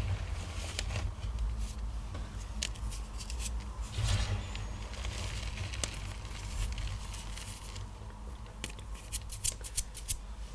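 Blocks of gym chalk crushed and crumbled by hand: irregular crunching and crackling, with a larger crunch about four seconds in and a quick run of crisp snaps near the end, over a low steady hum.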